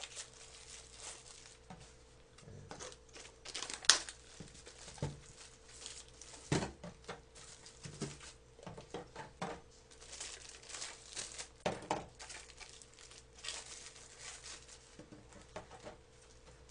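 Foil lids being peeled off small plastic yogurt-drink bottles and the bottles handled: scattered crinkling and light clicks, with one sharper click about four seconds in. A faint steady hum runs underneath.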